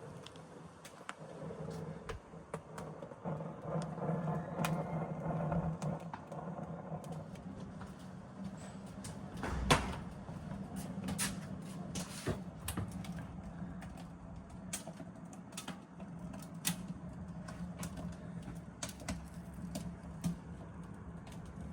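Scattered clicks and knocks of things being handled, with one louder knock about ten seconds in, over a low steady hum.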